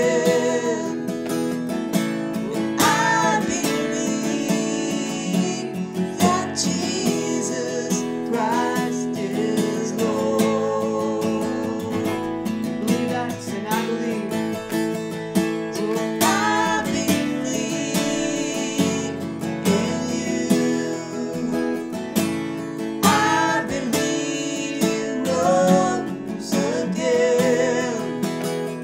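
Worship song: an acoustic guitar strummed steadily under sung vocal phrases.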